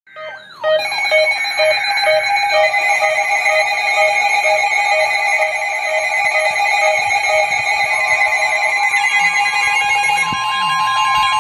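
Several emergency alert receivers sounding their warning tones together for a severe thunderstorm warning. Many steady tones overlap with a beeping tone at about two beeps a second, which stops about nine seconds in. A steady single tone joins about ten seconds in.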